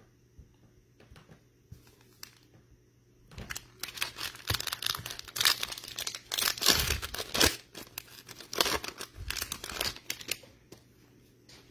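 Plastic wrapper of a Select Draft Picks football card pack being torn open and crinkled by hand. A few faint ticks come first, then a dense run of crackling tearing from about three seconds in until shortly before the end.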